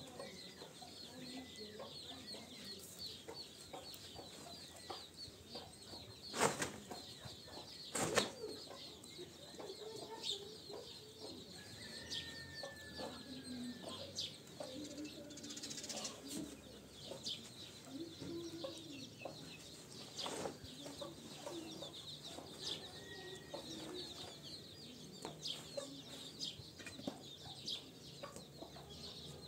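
Chickens clucking around a farmyard, with constant high chirping in the background. Two sharp knocks stand out about six and eight seconds in.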